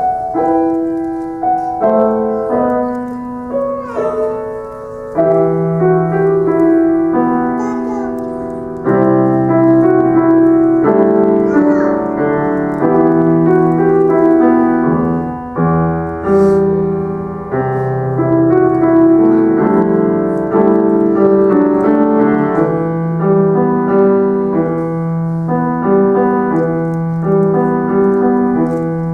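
Solo grand piano playing a Christmas medley: a melody over a moving bass line, with notes ringing on.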